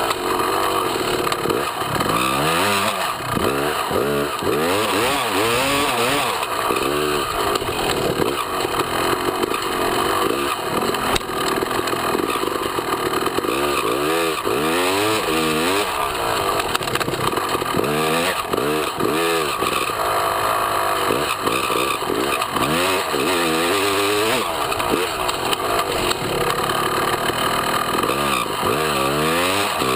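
Dirt bike engine heard up close from a camera mounted on the bike, its pitch climbing and dropping again and again as the rider accelerates, shifts and backs off, over steady wind and tyre noise.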